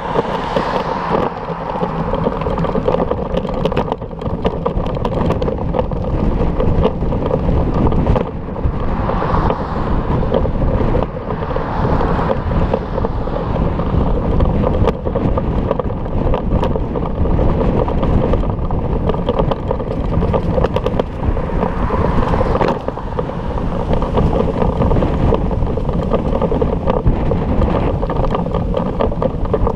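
Wind rushing over an action camera's microphone on a moving bicycle: a steady, rumbling rush that swells and eases every few seconds.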